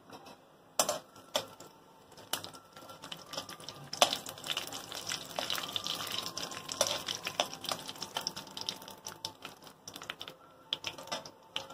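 Cashews and fennel seeds frying in hot oil and ghee in a kadai: a crackling patter of small pops and sputters. The pops are sparse at first and thicken from about four seconds in, with a spatula stirring through them.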